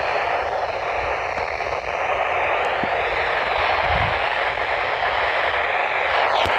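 Weather radio receiver giving out a steady static hiss: an open channel with no clear signal. A brief click comes near the end.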